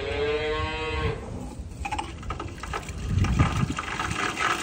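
A cow mooing, one long call that ends about a second in, followed by the splashing rush of water pouring into a cattle water trough.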